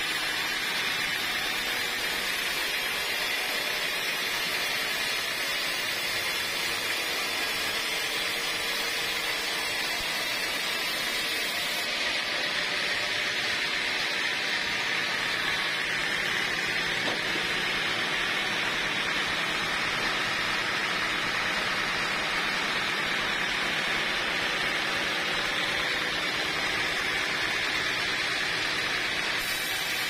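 Band sawmill blade cutting lengthwise through a dry teak log: a steady, even hiss of the blade in the wood over the running machine.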